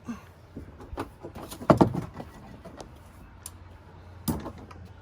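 Scattered clicks and knocks of a wrench and a jet ski's oil filter being handled as the loosened filter is worked off. The loudest clunks come just before two seconds in, with another sharp knock just after four seconds.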